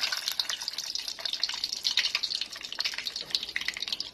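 Cashews deep-frying in hot oil in a saucepan, just dropped in: a steady sizzle full of quick crackling pops.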